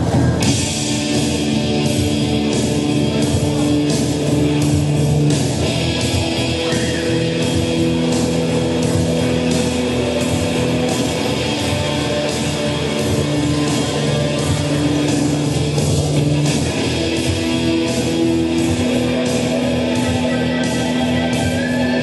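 Rock music played live: an instrumental passage led by guitar, with held notes over a steady beat.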